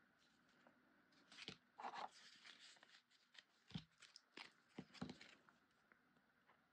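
Faint rustling and a few light taps of cut cardstock poinsettia flowers being handled and set down on a paper base, with scattered short crackles of paper between about a second and a half and five seconds in.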